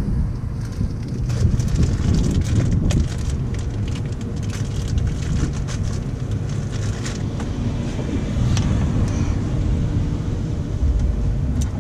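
Steady low outdoor rumble, with scattered light clicks and plastic rustling as small hose-clamp parts are handled.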